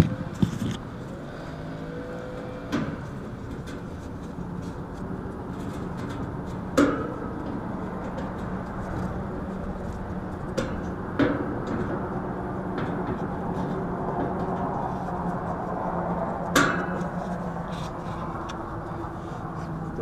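A handful of sharp metallic knocks and clanks, some ringing briefly, as hands work on an air conditioner condenser's wire fan guard and fan motor, over a steady low hum.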